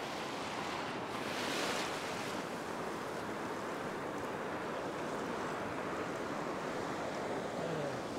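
Ocean surf breaking and washing up a sandy beach, a steady rushing, with one louder wave crashing about a second and a half in.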